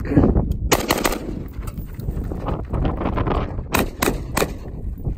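Gunshots from a firearm in quick strings: about three shots a second in and three more near four seconds in. Wind rumbles on the microphone between the shots.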